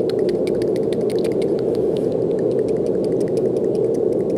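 Steady brown noise: a deep, even rushing hiss with no pitch, holding at a constant level. Light, irregular clicks crackle faintly over it throughout.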